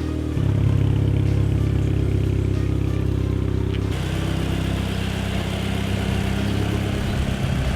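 Volkswagen GTI engine running at low revs while the car is driven a short distance, its note stepping to a new pitch about half a second in and again about four seconds in.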